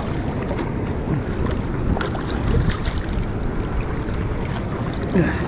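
Steady rush of water pouring over and below a dam spillway.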